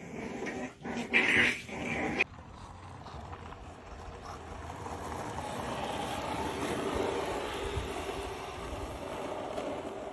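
Puppies whimpering for about two seconds, then a sudden change to the steady rolling noise of a small skateboard's wheels on asphalt as a poodle rides it. The rolling grows louder over a few seconds and then holds steady.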